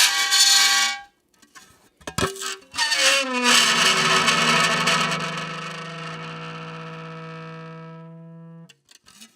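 Metal license plate on dry ice, screeching and singing as the escaping gas makes it vibrate: a short pitched screech at the start, then a rising squeal about two seconds in that settles into a steady low, buzzing tone. The tone fades slowly and stops abruptly near the end.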